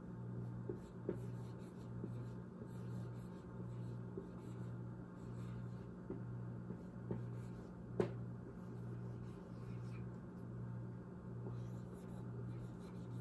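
Quiet writing sounds: a pen or marker scratching and tapping in short strokes, with one sharper click about eight seconds in, over a steady low hum.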